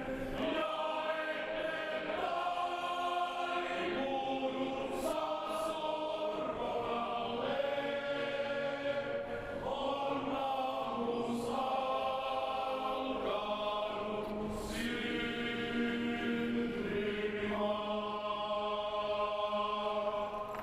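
Choir singing a slow sacred piece in long held chords that change every second or two.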